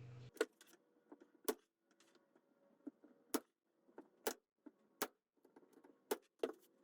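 Light, sharp clicks and knocks, about eight of them at irregular intervals, with near quiet between them.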